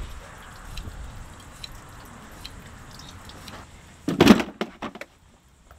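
A large, wet fish dropped into a plastic cooler, landing with one heavy thud about four seconds in, followed by a few smaller knocks as it settles.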